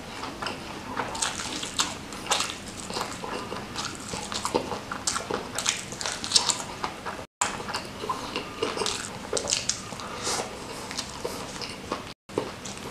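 Close-miked eating of ayam geprek, fried chicken smothered in chilli sambal: biting into the coated meat and chewing, with many short crunches and wet mouth sounds packed closely together. The sound cuts out for an instant twice.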